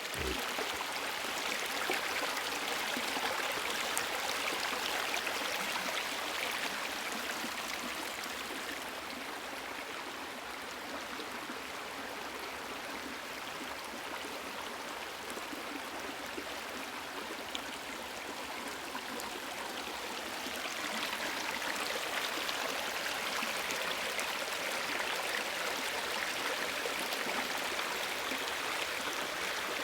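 Mountain stream running over rocks, a steady rush of water that grows a little quieter for about ten seconds in the middle and then fuller again.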